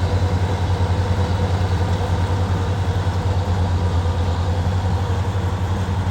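Engine running steadily at a constant speed, with a fast, even low throb.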